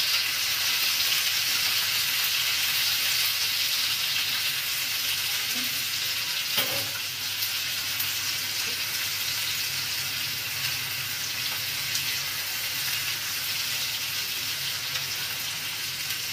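Chopped onions and tomatoes sizzling steadily in hot oil in a frying pan, stirred now and then with a spatula. One sharp click about six and a half seconds in.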